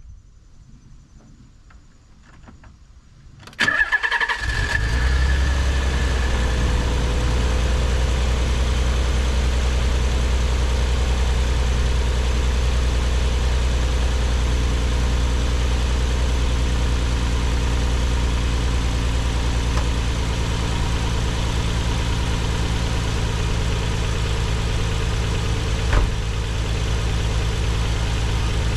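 Nissan 300ZX (Z32 non-turbo) 3.0-litre V6 engine cranking briefly and catching about three and a half seconds in, with a short high whine as it fires, then idling steadily on its freshly installed spark plugs. One sharp click sounds near the end.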